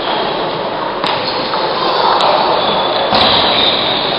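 Steady background noise of a large sports hall where table tennis is being played, with three sharp clicks of a table tennis ball spread over a few seconds.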